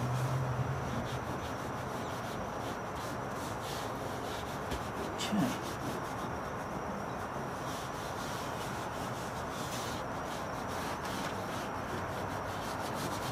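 Gloved hands rubbing and smoothing molded automotive carpet into a truck cab floor: a steady scuffing with one brief louder sound about five seconds in.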